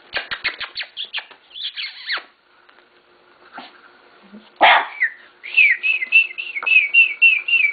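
Bulldog puppies squealing and yipping in short, high, falling cries, with a louder cry about halfway and a quick run of about three to four squeals a second near the end. A few quick taps come at the start.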